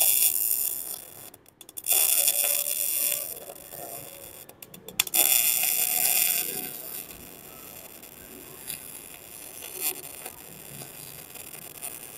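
MIG welding arc from a Hồng Ký MIG 200E welder crackling and sizzling as it lays a bead on thin box-section steel, with 0.8 mm wire at the maker's preset settings. It runs in stretches with two short breaks, the first about a second and a half in and the second at about five seconds, and is quieter in the second half.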